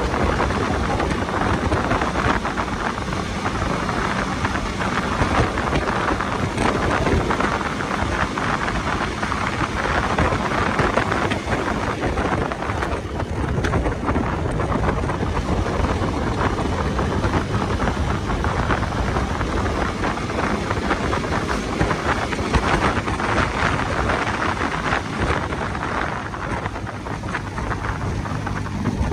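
Steady rushing wind noise buffeting the microphone of a moving bike, with a low rumble underneath.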